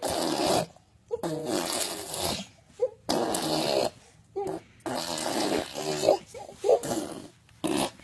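A baby blowing raspberries: lips buzzing in a string of fart-like bursts about a second long each, with short vocal squeals between them.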